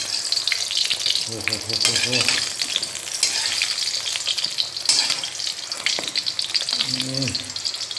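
Brinjal slices sizzling and crackling in hot oil in a kadai while a spatula turns them over.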